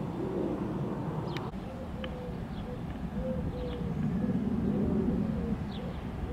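Outdoor ambience of birds calling: a run of short, lower-pitched repeated notes with a few brief high chirps, over a steady low rumble. A single sharp click about a second and a half in.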